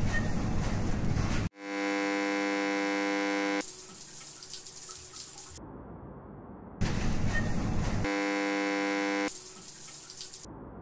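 An edited loop of sound snippets: a rush of noise like running water, then a harsh steady buzzer tone for about two seconds, then more rushing noise. The pattern cuts off abruptly and repeats, with the buzzer returning about eight seconds in.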